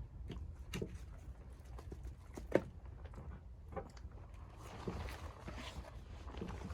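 Scattered soft knocks and taps, with one sharper knock about two and a half seconds in; a soft hiss builds in the second half.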